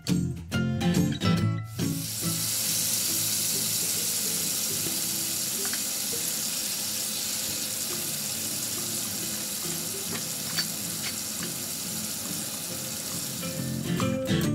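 Salmon fillets frying in a ridged grill pan in a spicy soy and chili sauce: a steady sizzle that starts about two seconds in, after a short stretch of background music, and gives way to music again near the end.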